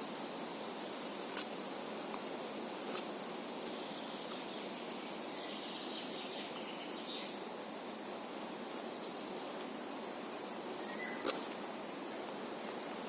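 Steady outdoor background noise, with a small bird chirping high and thin for a few seconds midway. Three sharp clicks stand out over it.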